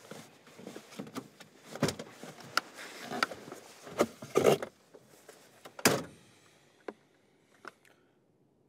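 Rustling with scattered knocks and clicks of people moving about inside a car, the loudest knocks about four and a half and six seconds in; the movement stops soon after, leaving only two faint clicks.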